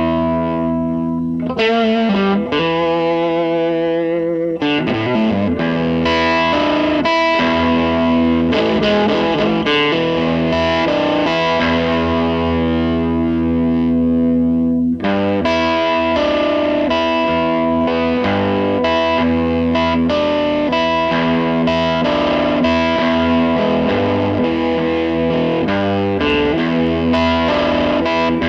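Background music: a rock track led by distorted electric guitar.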